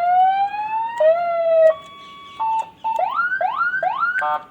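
Electronic police-style siren (hooter) fitted to a car, switched through its tones: slow rising wails, a steady tone with a few short beeps, then a run of quick rising whoops and a rapid stuttering burst before it cuts off.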